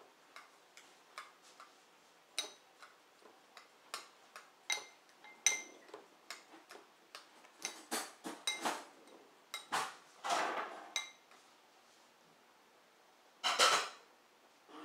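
Metal spoon clinking and scraping in a porcelain bowl: irregular sharp taps that ring briefly, with louder, longer strokes about ten seconds in and near the end.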